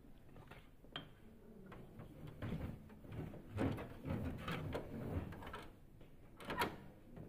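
A cloth wiping and rubbing against the plastic parts inside an opened photocopier, with sharp plastic clicks about a second in and again near the end.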